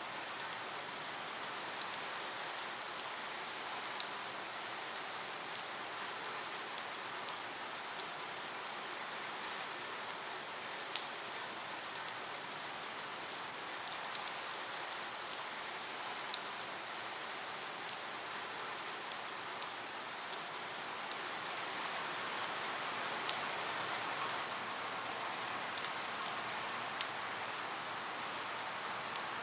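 Steady rain falling, with frequent sharp ticks of single drops hitting a surface over an even hiss.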